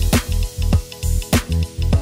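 Upbeat music with a steady drum beat, a little under two beats a second, over sustained bass notes.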